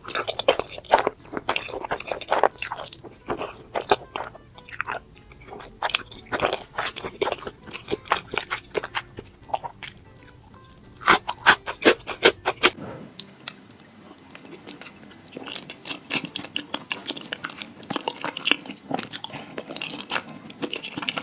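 Close-miked chewing of creamy pasta: wet, irregular mouth clicks and smacks. About 13 s in the sound shifts to a lighter, quicker pattern of smaller mouth clicks, as a different eater is heard.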